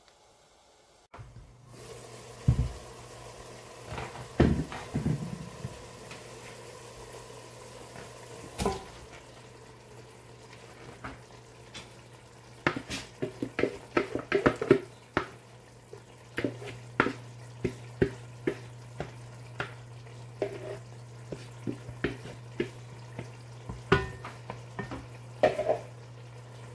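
Cooking sounds at a stovetop pot: a steady low hum under scattered clicks and knocks of the pot and utensils. About halfway through there is a dense run of clatter as something is tipped from a bowl into the pot, and after it single clicks come about once a second.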